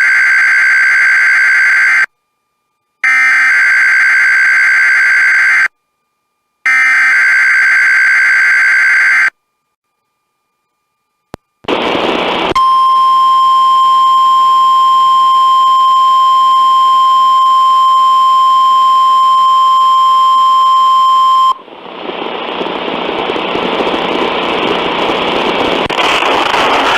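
NOAA Weather Radio test alert: three screechy digital data bursts of the SAME header, each about two and a half seconds with a second of silence between, then a brief crackle of static and the 1050 Hz warning alarm tone, one steady tone held about nine seconds. It cuts off into radio hiss. The signal is a routine weekly test of the warning system.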